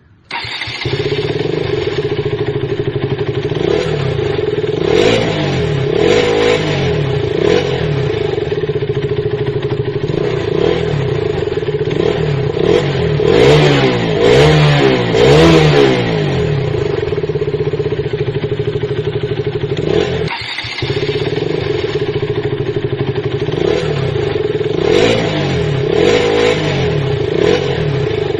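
KTM Duke motorcycle engine idling with a fast, even beat, its throttle blipped into short revs about five and six seconds in, a longer series of revs from about 13 to 16 seconds, and two more near 25 and 26 seconds.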